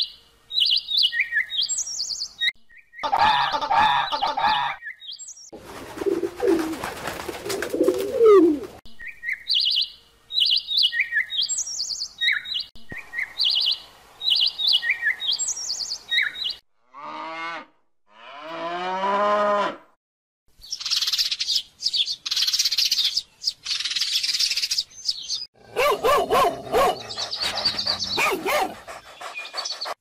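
A quick succession of different animal sounds: bursts of short, high chirps like bird calls, pitched calls with sweeping curves in pitch, and stretches of hiss-like noise in between.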